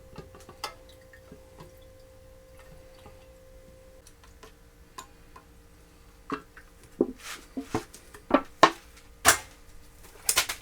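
Light clicks and knocks of small objects being handled, sparse at first, then more frequent and louder in the second half, over a faint steady hum.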